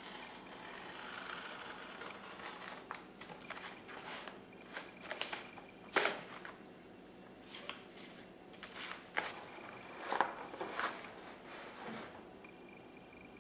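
Handling noises on a workbench: a utility knife and a ruler scraping and tapping while a black film is cut. Short, scattered scrapes and knocks, the loudest about six and ten seconds in.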